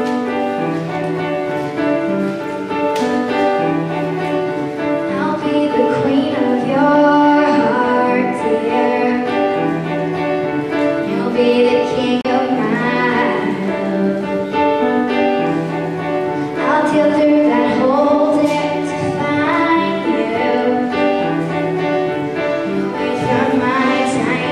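Upright piano playing a song. A girl's voice joins in singing about five seconds in.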